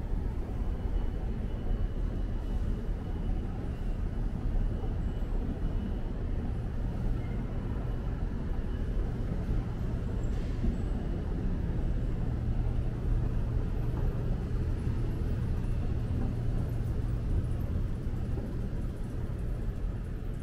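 Steady low rumble of city street traffic, a little louder from about ten to eighteen seconds in.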